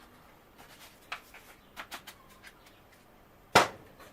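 Small tools and containers being handled on a workbench: a scatter of light clicks and taps, then one sharp click about three and a half seconds in.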